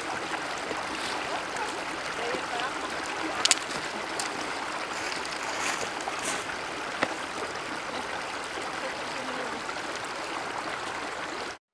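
Steady hiss of running water over stones, with a few short sharp clicks on top. The sound cuts out to silence for a moment at the very end.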